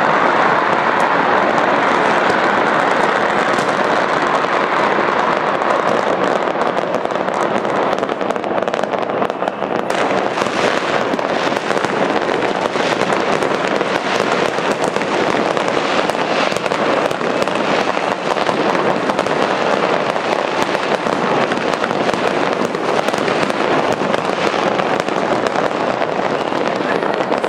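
New Year's Eve fireworks: a dense, unbroken crackling and popping of many rockets and firecrackers going off at once.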